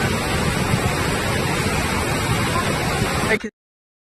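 Rushing water of the Beas river in flood: a dense, steady wash of noise that cuts off abruptly about three and a half seconds in.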